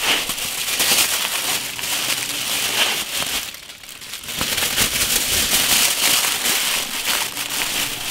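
Aluminium foil crinkling and crackling as it is unrolled from the roll and pressed around a bulky wrapped leg of lamb. The rustling dips briefly about three and a half seconds in.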